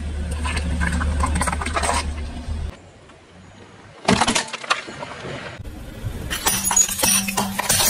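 A car tyre crushing objects in a quick series. First comes a low rumble with crackling as it rolls over plums, then sharp cracks as a plastic game cartridge breaks about four seconds in, and from about six seconds in ceramic saucers shatter with bright clinking.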